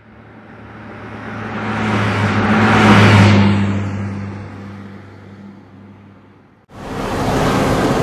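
A car passing by: its engine sound swells to a peak about three seconds in, then fades and drops in pitch as it moves away. The sound is cut off abruptly near the end, where a different sound takes over.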